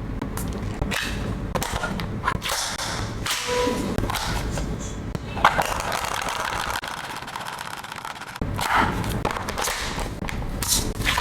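F4 gel blaster toy gun being handled and fired: a few separate sharp cracks and thumps spaced irregularly a second or more apart, the loudest about halfway through, over a steady low rumble.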